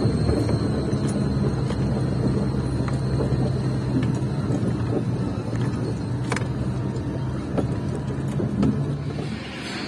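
Heavy truck's diesel engine running steadily while driving, a low even drone with a few light clicks and rattles; it changes abruptly near the end.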